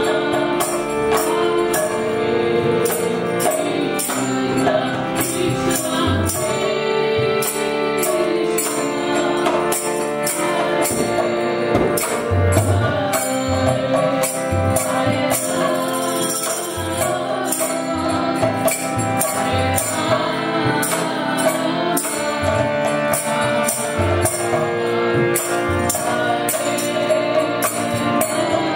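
Kirtan music: a woman sings a devotional chant over a harmonium's held chords, with a mridanga drum and karatalas (small brass hand cymbals) keeping a steady beat.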